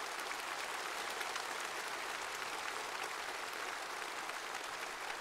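Large audience applauding steadily, many hands clapping at once in an even, continuous wash.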